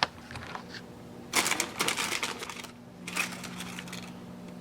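A sticker being peeled off tissue wrapping paper: a dense crackly run of small ticks lasting about a second, then a shorter crinkle of paper.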